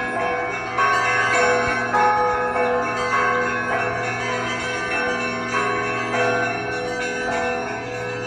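Russian Orthodox church bells ringing a feast-day peal (kolokolny zvon). Several bells of different pitches are struck in a repeating pattern, with fresh strikes about once a second over a continuous ringing.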